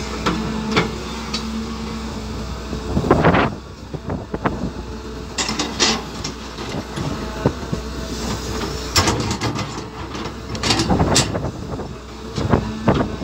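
Caterpillar 320 hydraulic excavator at work digging soil and loading a dump truck: its engine runs steadily under irregular clanks and scrapes of the steel bucket, with several louder rushes as loads of dirt pour into the truck bed.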